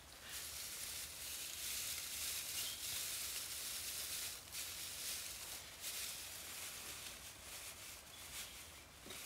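Dry straw rustling in uneven spells as it is gathered and pressed into a nest by hand.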